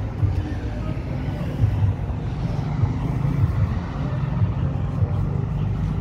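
Steady low rumble of city street traffic, cars and heavier vehicles running together with no single one standing out.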